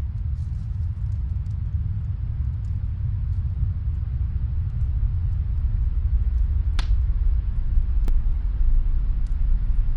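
Snowstorm wind making a steady low rumble, with the faint, scattered crackle of a wood fire in another room. Two sharper pops come about seven and eight seconds in.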